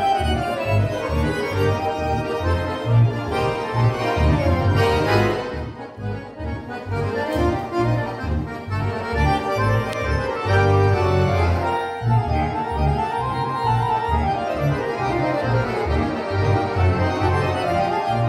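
Accordion quintet playing live: a fast, pulsing bass under rising and falling melodic lines, briefly quieter about six seconds in.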